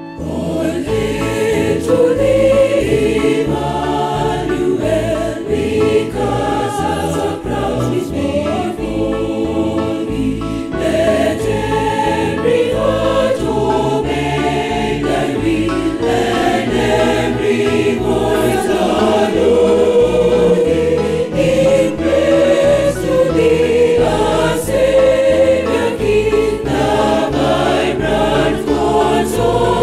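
Church choir singing a hymn in harmony, several voice parts moving together over steady low notes.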